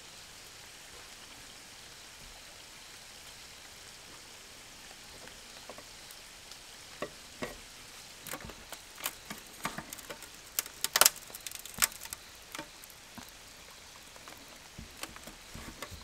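Faint steady hiss, then from about six seconds in a run of sharp clicks and light taps of dalgona-making utensils being handled, with a few louder clicks around eleven and twelve seconds in.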